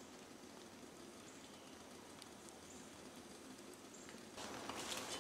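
Faint outdoor ambience with a few faint, short high chirps. Near the end, footsteps begin crunching through dry fallen leaves.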